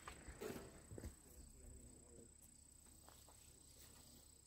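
Near silence between shots. There are a few faint small clicks near the start and about a second in, faint distant voices, and a faint steady high-pitched tone.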